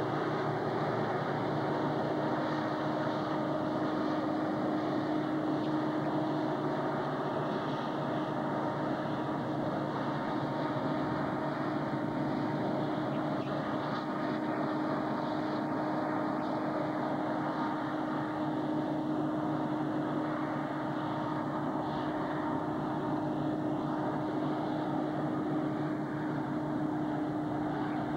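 Diesel locomotives of a Burlington Northern coal train running, a steady engine drone with a constant hum and no sudden sounds.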